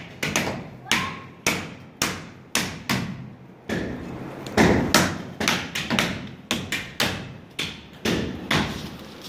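Meat cleaver chopping sacrificial meat and bone into pieces: sharp single blows, about two a second, with a short pause near the middle.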